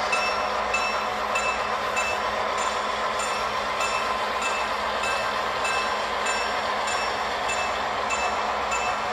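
Model freight train running past on the layout track: a steady rolling and running noise, with light ticks repeating at an even pace, somewhat under two a second.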